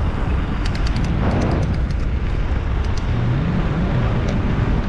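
Mountain bike descending a dirt trail: wind rushing over the microphone and the tyres rolling over loose ground make a steady rumble. A quick run of sharp clicks and rattles comes just under a second in, and single ones follow later.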